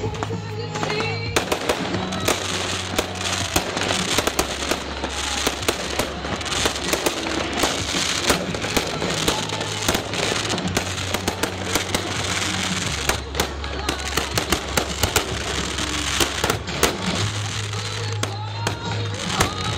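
A fireworks display bursting and crackling continuously, with many sharp bangs, over loud music with a steady deep bass line. The sound comes in suddenly at the very start.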